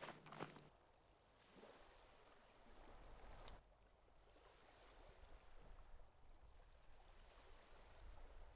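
Near silence: a faint hiss of background ambience that drops away suddenly about three and a half seconds in, after a soft click at the very start.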